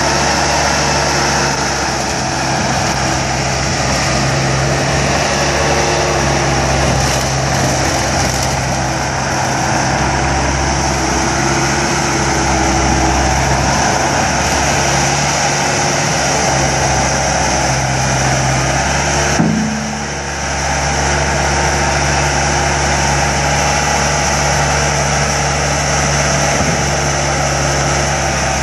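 Bobcat T200 track loader's diesel engine running steadily. About two-thirds of the way through there is a short knock and the engine note dips briefly.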